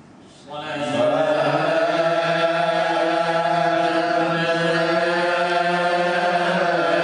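Islamic salawat chanted by voice in a long, slow, drawn-out line that comes in about half a second in and is then held steadily.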